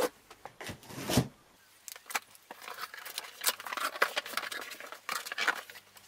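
Corrugated cardboard box flaps being pulled open and folded back: a thump about a second in, then irregular scraping and rustling of cardboard against cardboard.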